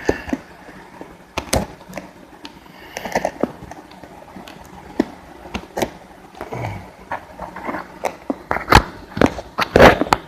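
Irregular sharp clicks and knocks of a hole being drilled on a milling machine, with the loudest two knocks near the end.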